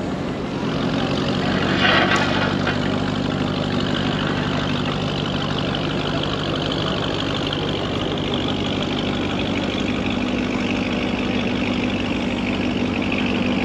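Vehicle engine idling steadily in slow street traffic, with a brief louder burst of noise about two seconds in.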